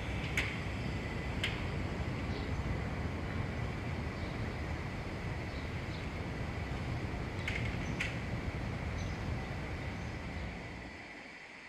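Street ambience: a steady low rumble with a few sharp clicks, fading away near the end.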